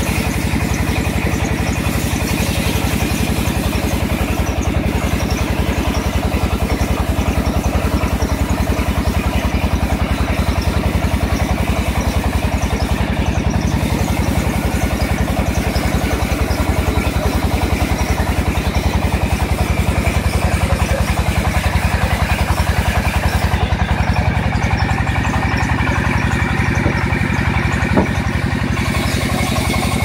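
Single-cylinder stationary diesel engine running steadily at a constant pace, driving a sawmill band saw through a long flat belt. A single short knock comes near the end.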